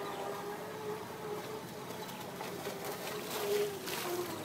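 Electric motor of a radio-controlled boat whining at high speed, its pitch wavering slightly. Near the end there is a rush of spray and water noise as the hull skims past close by.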